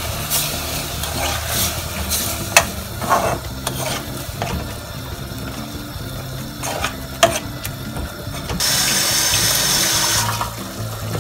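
A metal spoon stirring and scraping a wet, sizzling sofrito with tuna in a metal pot, with a few sharp clinks against the pot. The hissing swells for a couple of seconds near the end, and soft background music runs underneath.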